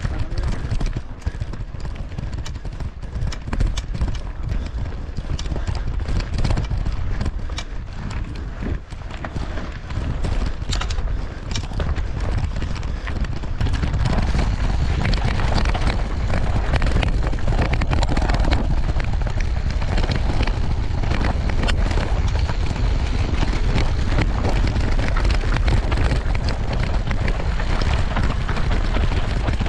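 Mountain bike ridden fast over rough dirt and gravel, heard from a camera mounted on the rider or bike: wind buffeting the microphone under a constant rattle and clatter of the bike and tyres. It grows louder and steadier about halfway through.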